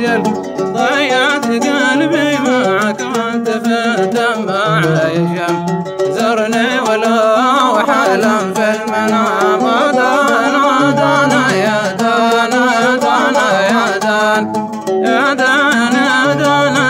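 Hadrami dan folk music played on oud and mizmar reed pipe: a wavering melodic line with plucked low notes, in a passage between sung verses.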